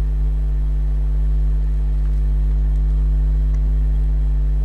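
A steady low hum, even and unchanging, with no other sound standing out.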